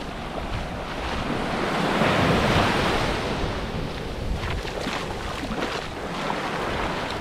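Small surf breaking on a sandy beach, a wave swelling about two seconds in and its wash running up over the sand, with wind buffeting the microphone.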